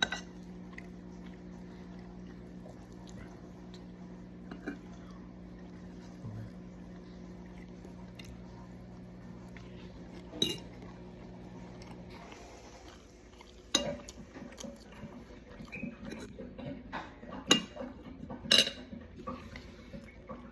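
Fork or cutlery clinking and scraping on a plate while eating, a few scattered clicks at first and then frequent sharp clinks in the last seven seconds. A steady low hum runs underneath and stops about twelve seconds in.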